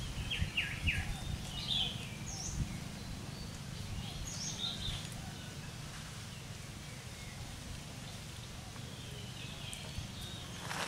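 Short, high-pitched animal chirps in small clusters, mostly in the first five seconds, over a steady low outdoor rumble.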